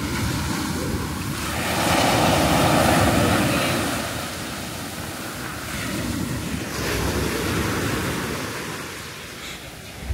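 Sea waves washing onto the beach, swelling loudest about two seconds in and again around seven seconds, with wind on the microphone.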